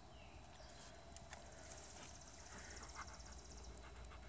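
Near silence in the woods, with a few soft clicks and rustles of handling as a king bolete mushroom is turned in the hand.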